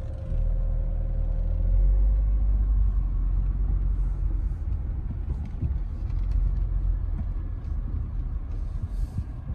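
Low steady rumble of a car driving, mostly road and engine noise, with a faint steady hum that fades out about two seconds in.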